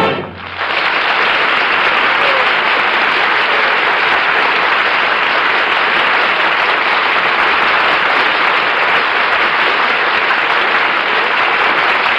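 Audience applauding steadily, swelling in about half a second in as the orchestra and singing stop. Heard through a narrow-band 1951 radio transcription.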